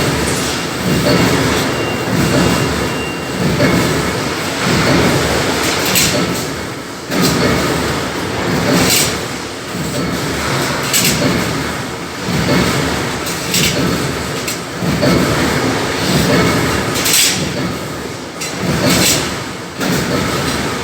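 Electric arc welding: a loud, continuous crackle and hiss that swells and dips, with sharp sputtering flare-ups every few seconds.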